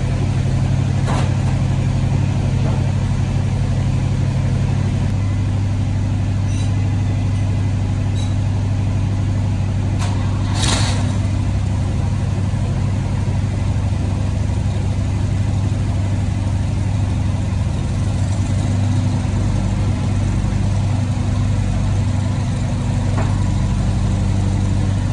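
Tractor engine running steadily just after starting, its low note shifting slightly about five seconds in. A single short sharp noise about ten seconds in.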